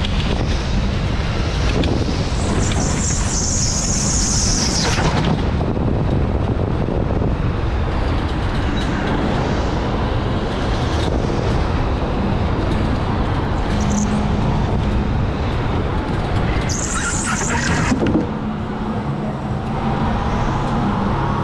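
Electric go-kart running on an indoor track: a steady rumble of kart and tyres, with high-pitched tyre squeals from about two to five seconds in and again near the end.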